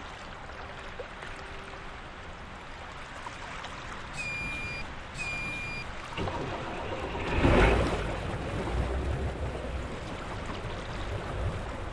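Motor yacht being started at the helm: two short electronic beeps from the control panel, then the engine starts with a surge about six seconds in and settles into running low and steady, over a constant wash of water and wind.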